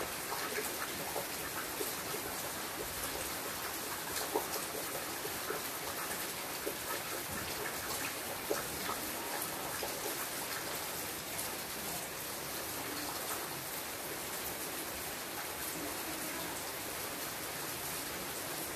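Steady rain falling on leafy foliage: an even hiss dotted with many small, sharp drop hits.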